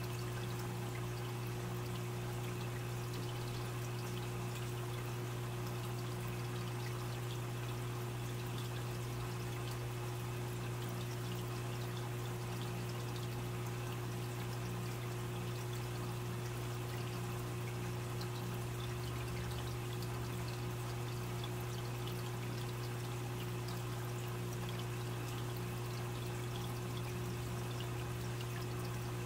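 Aquarium filter running: water trickling and splashing steadily over a constant low pump hum.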